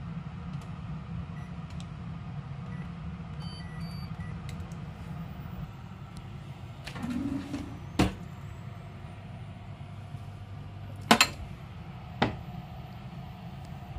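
Short high beeps from an induction cooktop's control panel as its buttons are pressed, then a kitchen drawer and bottles handled: a rustle, a sharp knock about eight seconds in, a double knock a few seconds later and one more just after. A steady low hum runs underneath.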